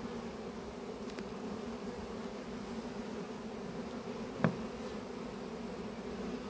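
A honeybee swarm buzzing in a steady, dense hum as it is being moved from a tree branch into a nucleus hive. A single short knock about four and a half seconds in.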